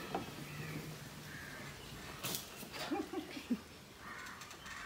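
Crows cawing now and then, with a few sharp clicks and short knocks about two to three and a half seconds in.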